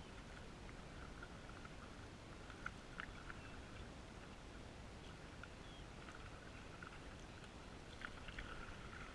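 Faint, muffled sound of a canoe being paddled: small splashes and drips from the paddles, heard through a GoPro's waterproof housing. A couple of sharper ticks stand out about three seconds in and again near the end.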